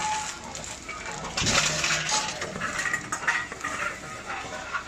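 Clinking and rattling of empty deposit bottles inside a reverse vending machine as it takes them in, irregular, with a busier stretch about one and a half seconds in.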